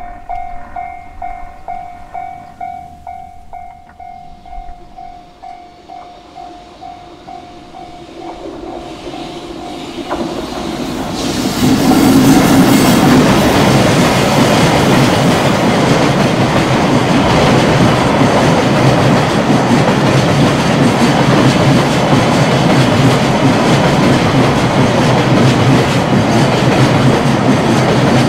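Japanese railway level-crossing warning bell ringing with a steady repeating tone. From about eight seconds in a train approaches, and from about twelve seconds it passes close by, loud, its wheels clattering over the rail joints.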